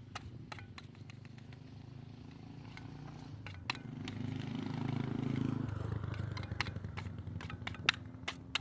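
A motorcycle passing on the road, its engine hum building to loudest about five seconds in and then falling away. Over it, repeated sharp clicks and scrapes of a putty spreader working polyester body filler and hardener together on a mixing board.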